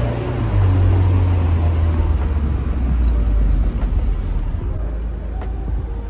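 Road noise inside a moving car's cabin: a steady low rumble of engine and tyres.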